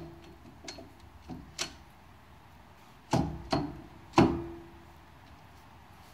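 Heavy steel truck wheel hub being worked onto the axle spindle, clunking metal on metal several times as it shifts and seats, each knock ringing briefly; the loudest comes a little after four seconds in.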